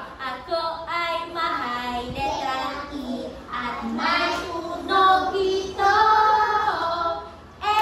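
A woman leading a simple letter-sound song about the letter E, with children's voices singing along.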